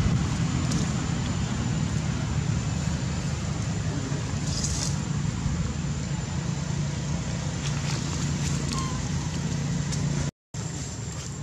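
Steady low rumbling outdoor background noise with a faint thin high tone above it; it drops out for a moment about ten seconds in.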